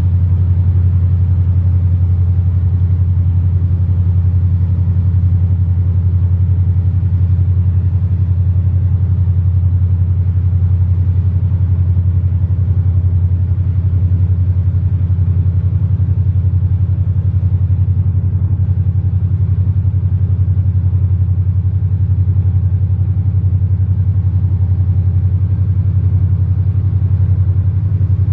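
Engines of the high-speed passenger catamaran ZUIKO running at low power as it pulls away from the pier: a loud, steady low rumble that holds even throughout.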